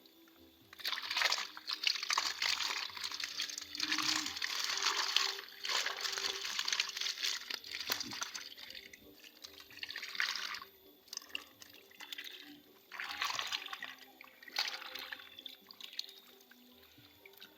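Water splashing and sloshing in irregular bursts, heaviest for most of the first ten seconds, then briefly again a few seconds later.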